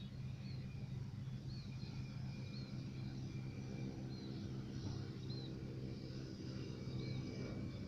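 A steady low motor hum, with a small bird giving short high chirps every second or so.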